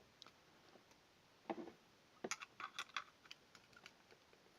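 Faint, scattered clicks and taps of hard plastic being handled as a saw-cut plug housing is worked loose by hand, with a soft knock about a second and a half in and a quick run of sharp clicks about halfway through.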